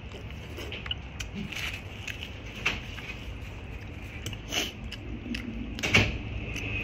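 Eating sounds: a scattering of short clicks and taps over a low steady background, the loudest about six seconds in.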